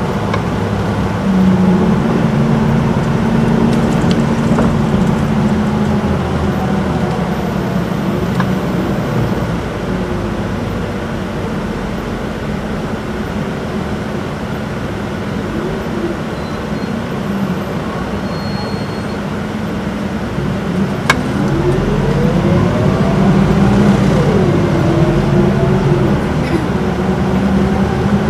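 Inside the cabin of an Isuzu Erga city bus under way: its four-cylinder diesel and torque-converter automatic transmission run steadily. The engine note eases off in the middle as the bus slows. About two-thirds of the way through there is a sharp click, then a whine that rises and falls as the bus accelerates again.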